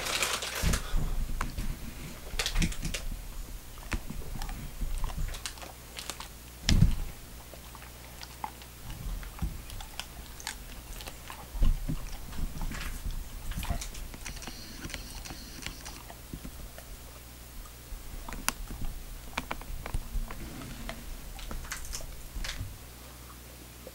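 Treeing Walker Coonhound chewing a Skittle: irregular smacking and clicking of its jaws, with a couple of louder thumps along the way.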